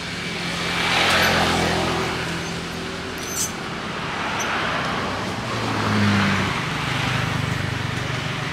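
Road traffic passing: two motor vehicles go by, about a second in and again about six seconds in, their engine hum and road noise swelling and fading over a steady traffic background.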